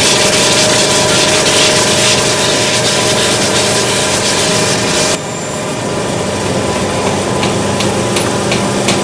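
Electric sanding machine running with a steady motor hum while an ash hurl is pressed against it, a loud rasping hiss of wood being sanded. About five seconds in the hiss drops suddenly to a quieter machine hum with a few light ticks.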